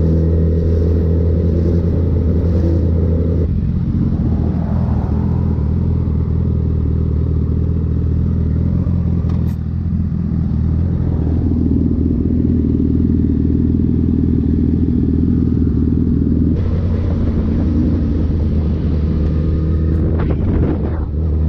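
Sport motorcycle engine running at a steady cruise while riding, with road and wind noise. The sound changes abruptly about three and a half seconds in and again near the end.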